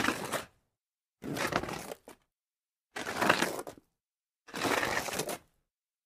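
Sliding-on-dirt sound effects: four separate short gritty scrapes of soil and grit, each under a second, about a second and a half apart, with dead silence between them.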